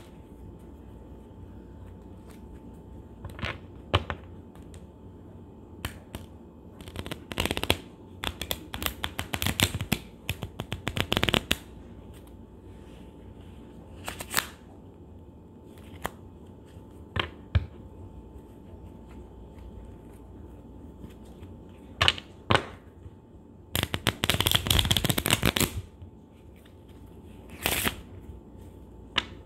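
A deck of playing cards being shuffled by hand: a few riffle shuffles, each a quick run of rapid fluttering clicks lasting about two seconds, the loudest one near the end, with single snaps and taps of the deck being bridged and squared in between.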